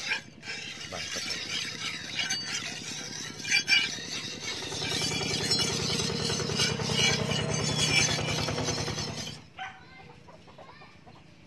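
Steel knife blade being stroked back and forth on a wet sandstone whetstone, a gritty rasping of rapid repeated strokes. It gets louder about halfway through, then stops suddenly near the end as the sharpening pauses.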